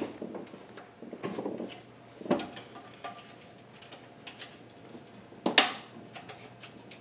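Scattered metallic clinks and knocks of hand tools and bolts, with two sharper clanks, one about two seconds in and a louder one about five and a half seconds in, while working the bolts off an engine's lower oil pan.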